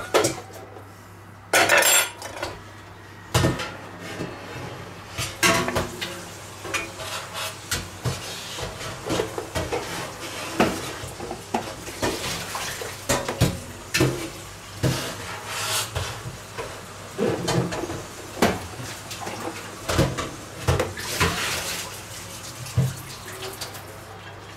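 Fork and knife clinking, tapping and scraping against a plastic vegetable dicer as food is cleared from its cutting grid: irregular small clicks and knocks, a louder cluster about two seconds in. A faint low steady hum runs underneath.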